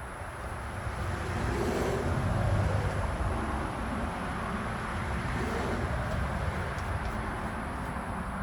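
Motor oil pouring from a bottle into the engine's fill neck: a steady, low rushing sound that grows louder about a second in.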